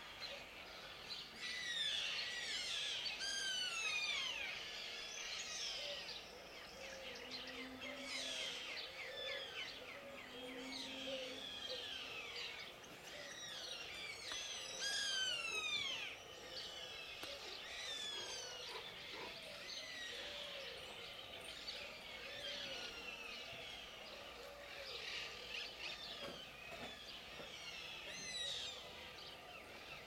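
Several birds singing at once in a park chorus: a dense run of quick, high, falling whistled notes. Two short low notes come in around 8 and 11 seconds in.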